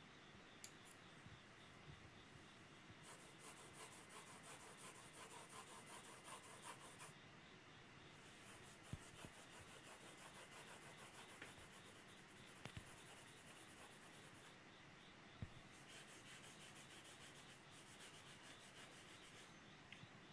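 Faint graphite pencil hatching on drawing paper: quick repeated scratching strokes in runs of a few seconds, with a few soft knocks in between.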